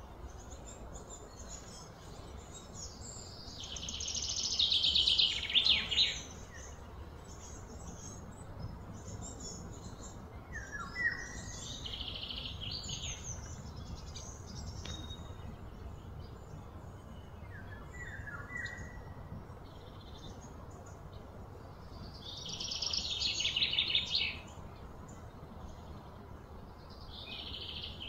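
Birds singing: a high, rapid trilled phrase of about two seconds repeats several times, swelling and then breaking off, with short falling chirps in between over a faint steady background hum.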